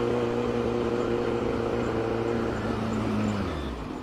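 Kawasaki Z900's inline-four engine running steadily at low speed, its note dropping and fading out about three seconds in.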